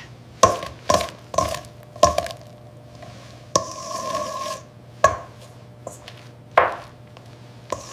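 Sound effects: a series of sharp clinks and knocks with a short ring to each, the first four about half a second apart, a longer ring in the middle and two more knocks later, over a low steady hum.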